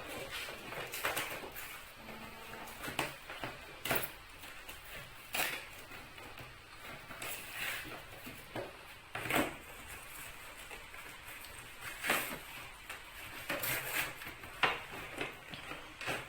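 Toy packaging being handled and worked open by hand: irregular crinkles, clicks and knocks of plastic and cardboard, with a sharper knock every second or two.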